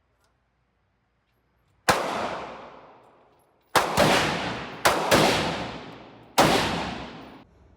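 Five gunshots at a shooting range: the first about two seconds in, then four more, two of them in quick succession. Each shot trails off in a long echo, and the last echo cuts off suddenly near the end.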